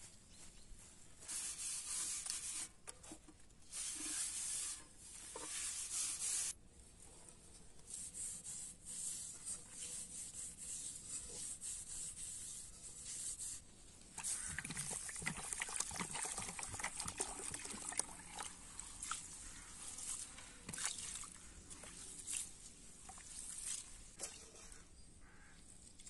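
Water poured from a plastic jug onto raw rice in a small metal pot, and the rice swished and rubbed by hand as it is washed, with many small clicks of grains, mostly in the second half. Before that, a few short spells of hands scraping in dry soil and fallen leaves.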